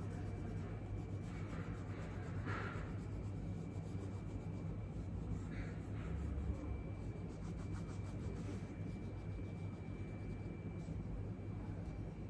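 A colouring pen scratching on paper in occasional short strokes, faint over a steady low hum.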